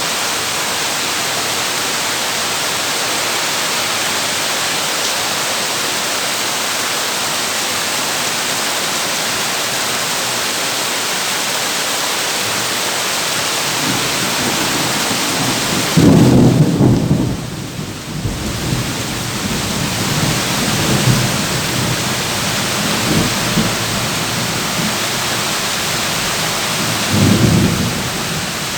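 Heavy rain drumming steadily on a tin roof, with thunder rumbling in from a little past halfway: the loudest roll just after the middle, followed by a few weaker rolls and another near the end.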